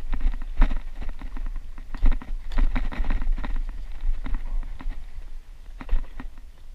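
Old Schwinn mountain bike rattling and knocking as it rides over a rough dirt trail with roots, with irregular clatter over a steady low rumble.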